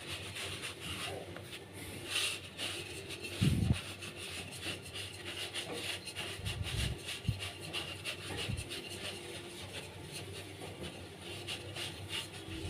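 Fingers pressing and pushing pizza dough out across an oiled round metal baking tray: continual soft rubbing and patting strokes, with a few low thumps, the loudest about three and a half seconds in.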